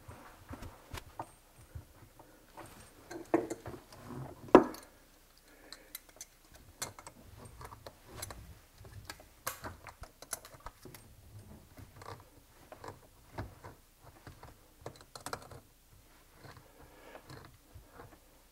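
Scattered small clicks and light metallic clatter of hands threading a braided supply tube's nut onto a brass pump fitting and handling a pair of pliers, with a couple of sharper knocks between about three and five seconds in.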